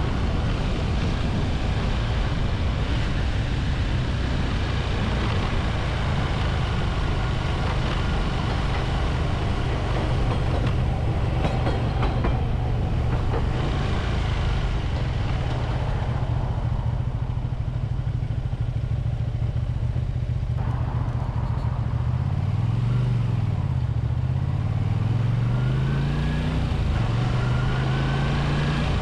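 A 1985 Honda VT250F Integra's 250 cc V-twin engine runs steadily under way. Near the end its revs climb and drop three times as it accelerates through the gears.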